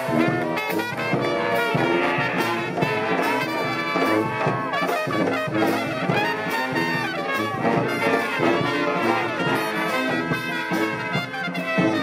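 Brass street band playing a tune: trumpets and trombone over a sousaphone, with a bass drum keeping a steady beat.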